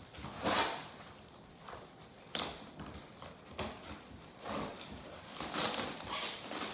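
Cardboard and brown packing tape being torn and ripped apart by hand: a series of short tearing, crackling bursts, a sharp one a little over two seconds in and a longer run of them near the end.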